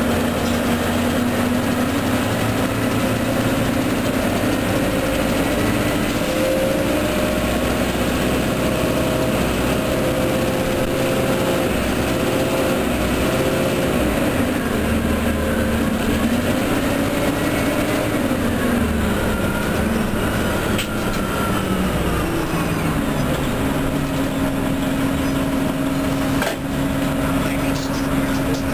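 Orion transit bus engine and drivetrain running under way: a steady hum whose pitch dips and rises through the middle, with a faint gliding whine above it, then holds steady for the last few seconds.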